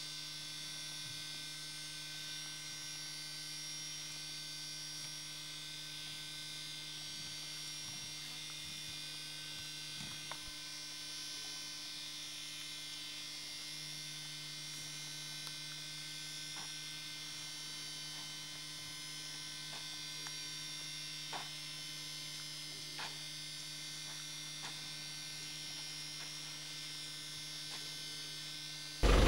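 Steady electrical hum with several constant tones and a few faint, scattered clicks. In the last moment a much louder vehicle engine cuts in abruptly.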